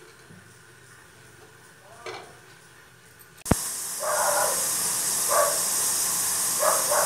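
Quiet at first, then a sharp click about three and a half seconds in, after which a covered kadai of mixed vegetables starts a steady, loud, high hiss of steaming and sizzling under its lid. Several short, louder sounds come over the hiss.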